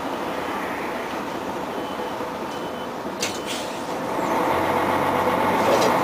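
Inside a moving IVECO 580 bus: diesel engine running with road noise. There are two short clicks a little over three seconds in, and the engine gets louder from about four seconds in.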